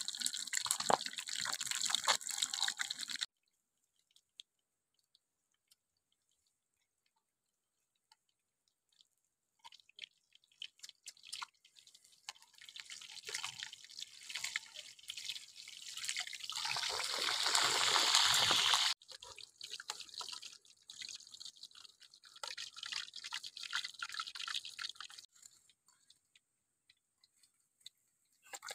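Two whole fish deep-frying in a wok of hot oil, the oil sizzling and crackling. It comes in stretches broken by a near-silent gap, swells to its loudest past the middle, then cuts off suddenly.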